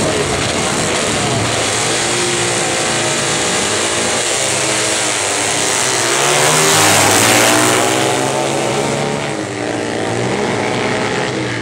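Two vintage Triumph motorcycles launching off the drag-strip line and accelerating hard, their engine note climbing in pitch and growing loudest about two-thirds of the way through as they pass, then dropping in pitch and fading as they run away down the track.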